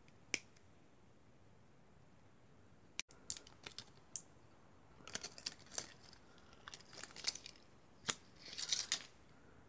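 A single sharp snip of side cutters biting into an 18650 cell's plastic wrapper. A few seconds later comes a run of irregular crackling and tearing as the thin plastic shrink-wrap sleeve is torn and peeled off the cell by hand.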